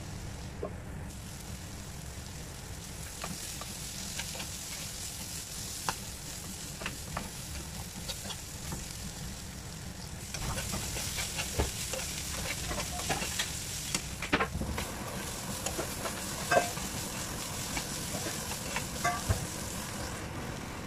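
Chopped bitter gourd and grated coconut sizzling as they fry in a pan, with a spatula scraping and clicking against the pan as they are stirred. About halfway through the sizzle gets louder and the spatula clicks come more often.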